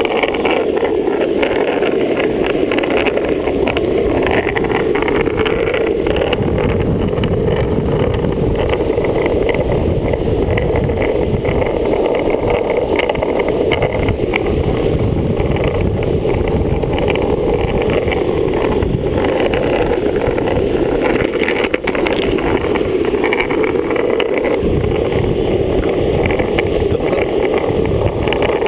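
Longboard wheels rolling fast on asphalt: a steady, loud rumble that runs on without a break.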